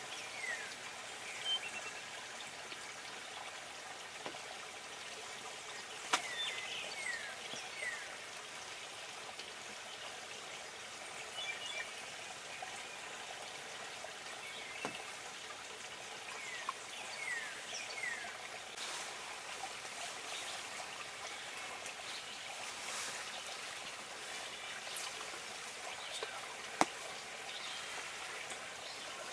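Faint steady background hiss with scattered short, falling bird chirps and a few sharp clicks.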